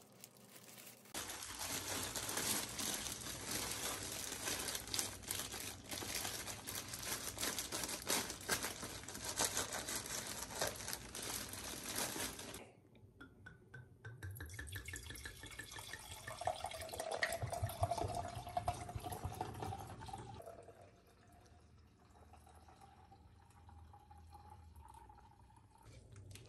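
A knife sawing through panettone with crinkling plastic for roughly the first half. Then white wine is poured from a bottle into glasses, a gurgling pour whose pitch rises as each glass fills.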